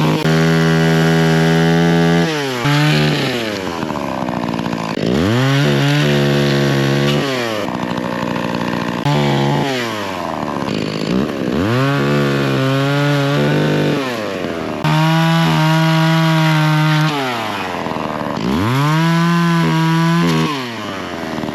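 Chainsaw cutting firewood, the engine at high revs with its speed repeatedly dropping and climbing back, about six times.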